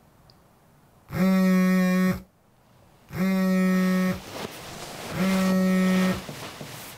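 Smartphone alarm ringing: a low, buzzy tone about a second long, sounding three times about two seconds apart.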